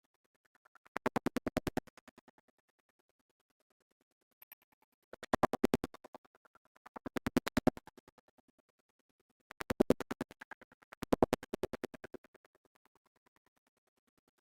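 Rapid mechanical clicking in five short bursts of about a second each, the clicks coming very fast and evenly spaced.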